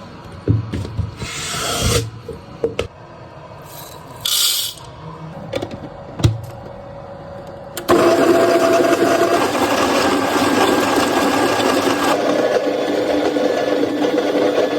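Scattered knocks, clicks and short hissing sounds of coffee gear being handled. About eight seconds in, a Baratza burr grinder's motor starts abruptly and runs steadily with a humming whine, grinding coffee beans.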